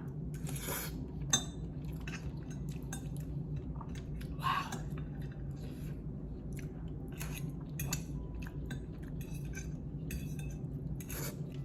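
Close-miked eating of instant noodles: utensils clicking and clinking against a dish and mouth chewing sounds, with a scatter of small sharp clicks and one sharper clink about a second in.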